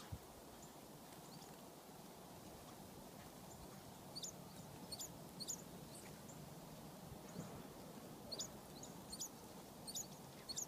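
Small songbirds giving short, sharp, high chip calls in quick clusters, starting about four seconds in and coming more often near the end, over a faint steady hiss. A single soft knock comes right at the start.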